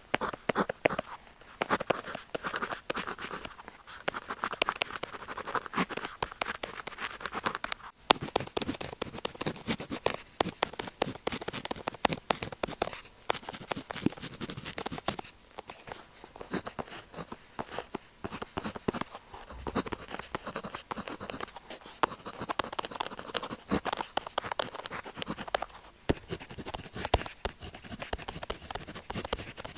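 Pen tip scratching across paper in quick, continuous strokes, with a few brief pauses.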